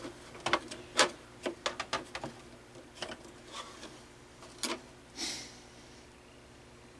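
Hands handling the plastic parts of a CD changer's disc carousel: a string of light, irregular clicks and taps over the first five seconds and a short scrape about five seconds in, over a faint steady hum.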